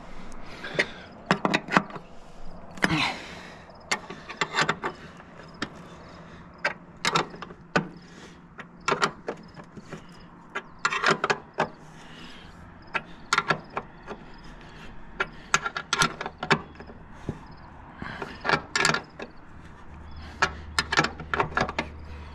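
Hand ratchet wrench clicking in short irregular bursts, with metal clinks, as bolts on the steel head of a grain bucket elevator are turned.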